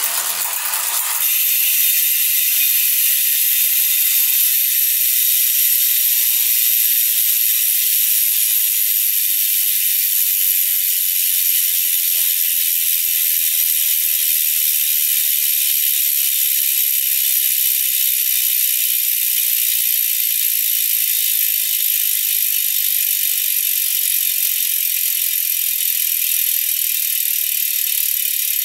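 Freehub of a Hunt Four Season Dura Disc rear wheel buzzing as the wheel coasts after being spun by hand. It is a fast, even ratcheting whirr that sets in about a second in and holds steady, easing only slightly as the wheel slows.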